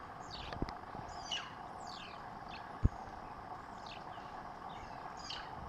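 Short, high animal chirps, each sliding quickly down in pitch, repeated irregularly over a faint steady hiss, with one sharp click near the middle.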